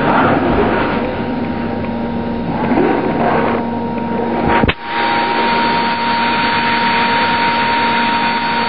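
Milling machine spindle whining steadily while a cutter machines an aluminium part under coolant spray, with a hissing wash of coolant over it. A single sharp click comes about halfway through, after which the low rumble falls away while the whine carries on.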